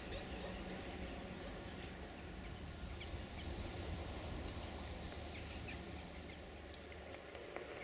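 Outdoor ambience: scattered faint bird chirps over a low steady rumble.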